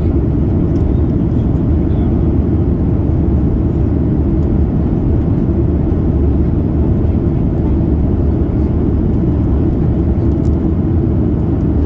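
Steady cabin noise of a Boeing 737 MAX 8 in descent: the even, low rush of its CFM LEAP-1B engines and airflow past the fuselage, heard from a seat by the wing.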